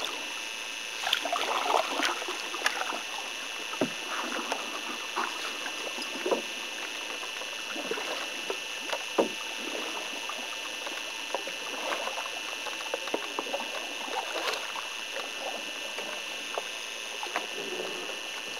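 Canoe paddling: paddles dipping and water trickling and splashing off the blades, with scattered light knocks, over a steady high whine.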